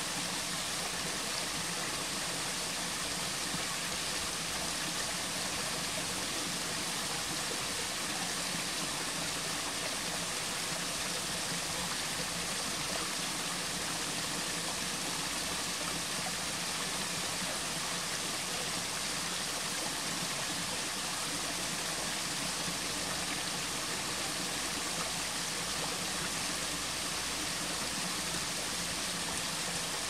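Small waterfall and cascade splashing over rocks into a stream: a steady, even rush of running water.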